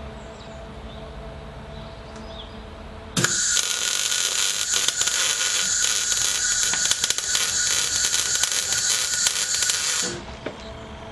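MIG welder arc crackling and hissing as a bracket is welded onto a steel pipe, starting suddenly about three seconds in and cutting off about seven seconds later. A faint steady hum before and after.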